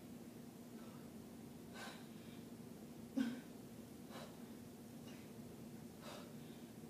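Faint, rhythmic breaths of a person exercising, about one a second, over a steady low hum. One dull thump about three seconds in.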